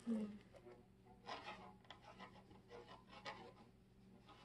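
Ink quill pen with a metal nib tip scratching across paper in short, faint strokes as words are written, about four or five strokes spaced roughly half a second to a second apart. A brief low tone sounds just at the start.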